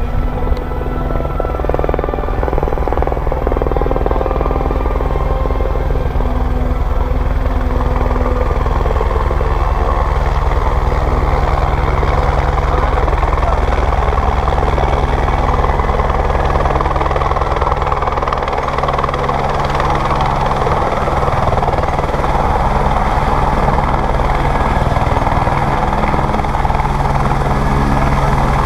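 Helicopter coming in to land: a steady rapid rotor beat over turbine noise, growing louder over the first several seconds as it approaches and descends, then running steadily on the ground after touchdown.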